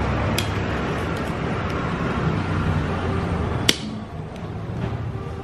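Steady background rumble of machinery or traffic with a low hum, over which needle-nose pliers click against the steel Royal Enfield kick-start shaft while pulling out its spring: a faint click near the start, then one sharp metallic click a little past halfway.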